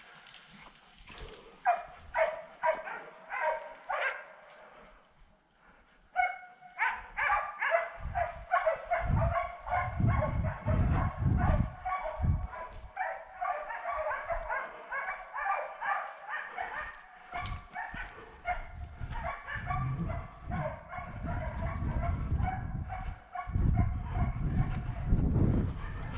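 A pack of hunting hounds barking and baying, several voices overlapping. There are separate barks at first, a short lull about five seconds in, then continuous baying, with low thuds underneath from about eight seconds on.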